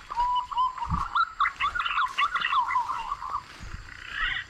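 Green pigeon calling: a wandering run of whistled notes for about three and a half seconds, with quick higher notes over it, then a short burst of notes near the end.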